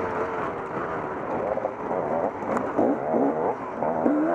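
Off-road dirt bike engine revving hard, its pitch rising and falling again and again with throttle and gear changes.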